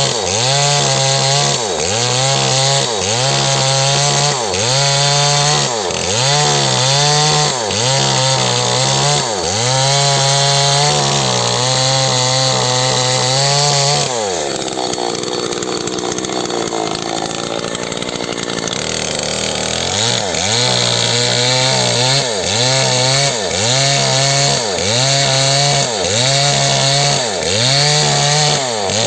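Small chainsaw running at high revs while cutting through wood, its note swelling and dipping about once a second as the chain bites. About halfway through it eases off to a steadier sound for several seconds, then goes back to cutting.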